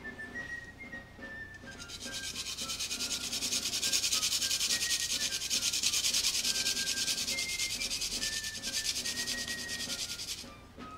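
Flat stainless steel hand grater scraping in quick, evenly repeated strokes as a root or clove is grated on it, starting about two seconds in and stopping just before the end.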